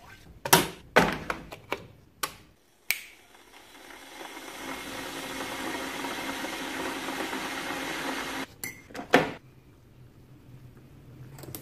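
Stainless steel electric kettle: a few clicks as it is closed and set on its base, then the steady hiss of the water heating, swelling slowly for about five seconds before stopping abruptly. Two more clicks follow, then hot water poured faintly into a mug.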